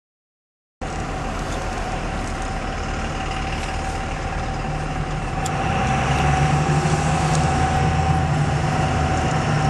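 Vehicle engine and road noise heard from inside a moving car, with a steady whine over it, growing louder about halfway through.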